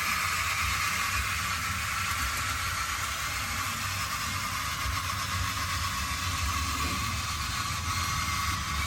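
1:16 scale RC construction machines running: a steady engine-like hum with a hiss above it, even throughout, with no distinct knocks or dumps.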